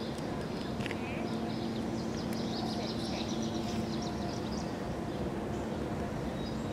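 Small birds chirping and twittering in short high calls, over a steady low background hum.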